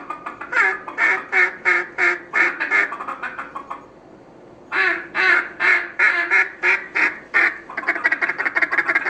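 Mallard-style quacking in long, evenly paced series of about three quacks a second. It pauses briefly midway, then resumes and runs into a quicker chatter of shorter notes near the end.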